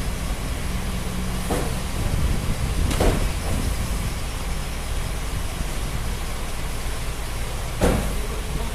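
Cartons of motor oil knocking and thudding as they are handled and set down in a truck's cargo box: a few separate thumps, the sharpest near the end, over a steady low rumble.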